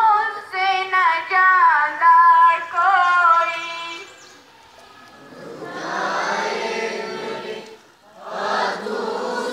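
One voice sings a drawn-out, wavering melodic line, then after a short lull about halfway through, a large group of students' voices takes up the chant together in unison.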